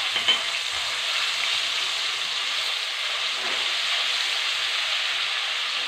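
Ginger-garlic paste frying in hot oil with cumin seeds in a non-stick kadhai: a steady sizzle while it is stirred with a wooden spatula.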